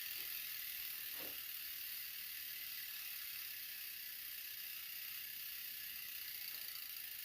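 Mountain bike's rear freehub freewheeling with a steady high-pitched buzz, its pawl clicks run together as the wheel spins.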